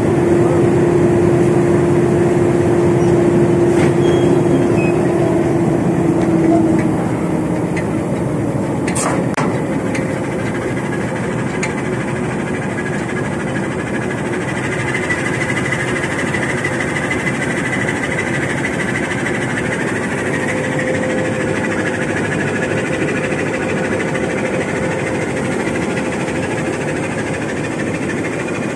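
Diesel locomotive idling close by, a loud steady engine sound. A steady hum over it stops about seven seconds in, and a few sharp metallic clicks come around nine to twelve seconds in.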